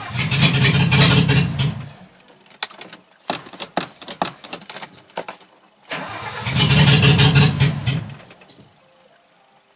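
A starter motor cranks a freshly installed Mercedes engine twice, about two seconds each time, without the engine catching: it is being turned over to build pressure before a first start. Sharp clicks come between the two cranks.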